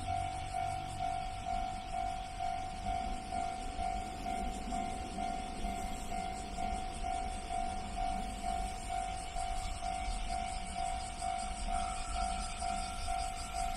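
Japanese railway level-crossing warning bell ringing, a steady electronic ding repeating evenly, signalling that a train is approaching. A low rumble runs underneath.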